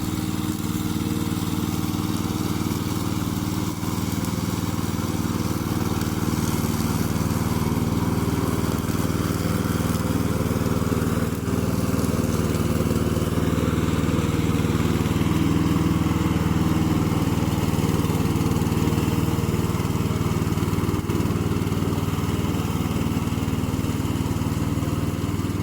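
Loncin 9 hp single-cylinder petrol engine of a remote-control tracked lawn mower running steadily.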